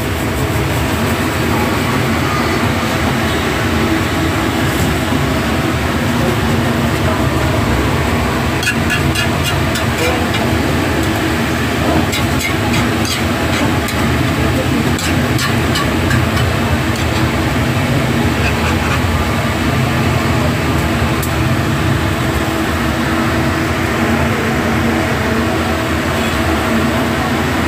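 Steady, loud mechanical drone with several held tones underneath. Between about 8 and 16 seconds in come a series of sharp metallic clicks from a metal spatula against a metal pizza pan as the baked sandwich is lifted off.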